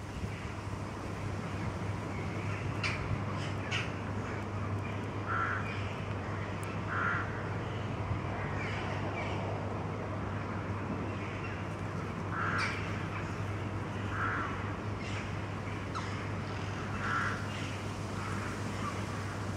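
A bird calling in the background: short calls repeated every two to three seconds.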